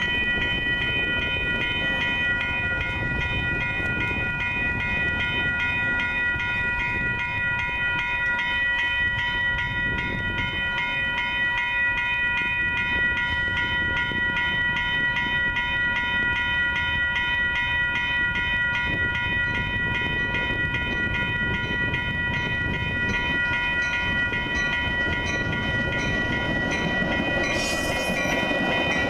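Grade-crossing warning bell ringing steadily in rapid, even strikes over a low rumble. Near the end the noise swells as a Metra bilevel commuter train reaches the crossing and its cars pass.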